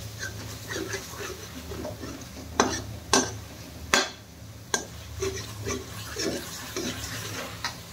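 A spatula stirring and scraping saag as it fries in ghee in a pan. Several sharp knocks of the spatula against the pan come about a third of the way through and again near the end.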